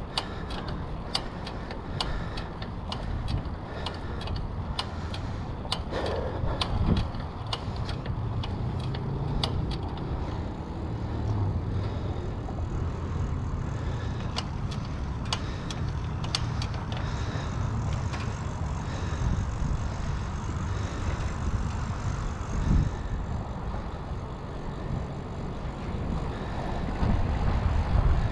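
Rental bicycle being ridden along a concrete path: wind buffeting the front-mounted camera's microphone over tyre noise, with frequent small clicks and rattles from the bike. The rumble grows louder near the end.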